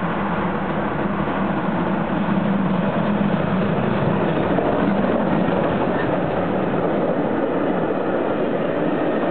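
SBB C 5/6 four-cylinder compound steam locomotive passing close by under steam, its train of coaches then rolling past on the rails. A steady hum of motorway traffic runs underneath.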